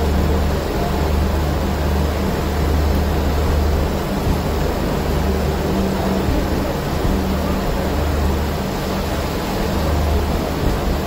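Steady hum and rush of a standing air-conditioned passenger train's equipment running, with a low drone that fades and returns every few seconds.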